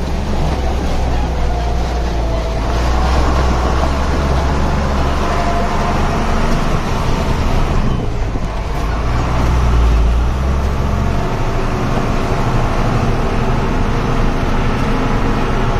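Heavy truck's engine running under load at low speed as the truck crawls up and over concrete hume pipes laid across a rough dirt road. The deep drone eases about eleven seconds in.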